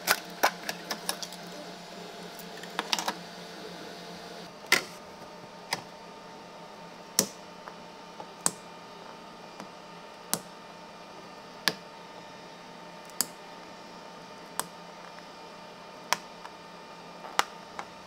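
Small 3D-printed plastic parts clicking and snapping as they are popped off and set down on a flexible steel 3D-printer build plate. There is a quick run of clicks at first, then a single sharp click every second or so, over a low steady hum.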